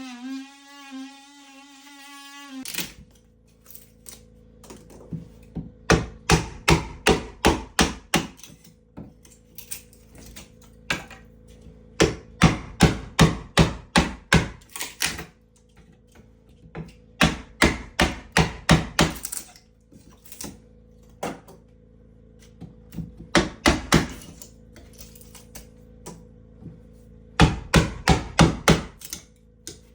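Hammer striking into wood in bursts of rapid blows, about four a second, each run lasting a few seconds with short pauses between. A guitar music passage ends about two and a half seconds in.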